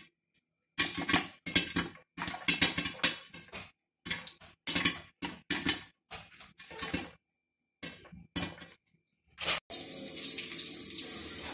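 Popcorn kernels popping in a covered pot, in quick bunches of sharp pops with short gaps between them. Near the end the popping stops, there is one sharp click, and then a steady hiss.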